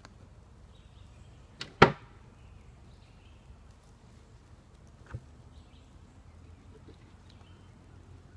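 Two sharp knocks close together, then a softer single knock a few seconds later, as beehive covers and boards are handled and set down.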